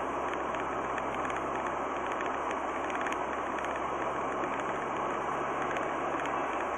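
Steady road and engine noise of a car driving at about 60 km/h, heard from inside the cabin through the dash cam's microphone, with a low hum that cuts out near the end.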